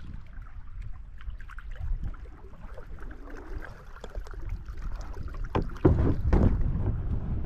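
Steady low rumble of wind and moving river water, with a short cluster of loud knocks and scrapes on stones about six seconds in.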